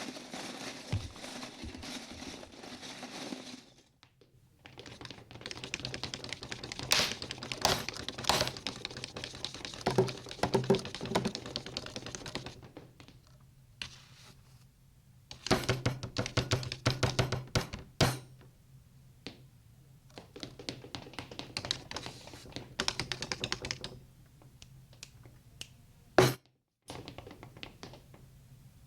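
Cartoon foley effects: bursts of rapid clicking and clattering taps, stopping and starting, over a steady low hum, with one sharp knock near the end.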